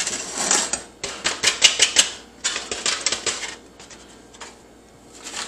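A plate tapped and scraped against a saucepan to knock ground turmeric off it: rapid runs of sharp clicking taps, three runs in the first few seconds, then only a couple of faint taps.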